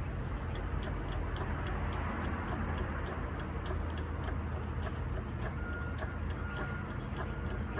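Vehicle engine idling with a steady low rumble and a regular ticking. A little past halfway, a high beep starts, sounding on and off a little more than once a second, like a reversing or warning beeper.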